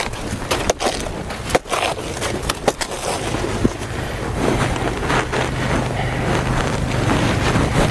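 Blunt machete chopping at banana stalks and undergrowth: irregular hacks and cracks of the stems with rustling of dry leaves. A low steady engine hum comes in about three seconds in and carries on underneath.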